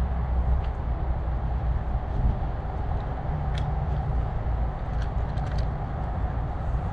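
A steady low rumble of wind and handling noise on a body-worn action camera's microphone as the wearer moves through tall grass. A sharp click comes about three and a half seconds in, and a quick run of four clicks about five seconds in.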